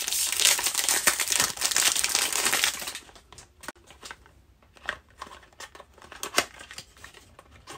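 Gift packaging being unwrapped by hand: loud, continuous crinkling for about the first three seconds, then quieter scattered rustles and small clicks.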